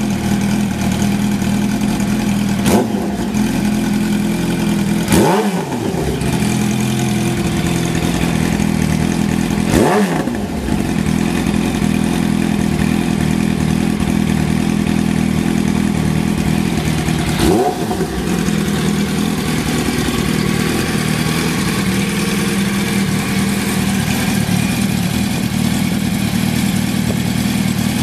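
2010 Yamaha YZF-R1's crossplane inline-four engine idling steadily, with four short throttle blips that rise and fall in pitch. The stable idle is one of the points given for the engine's good condition.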